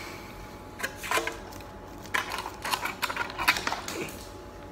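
Plastic seasoning sachet being torn open and crinkled by hand: short crackling bursts about a second in, then a longer run of crackles from about two seconds to nearly four.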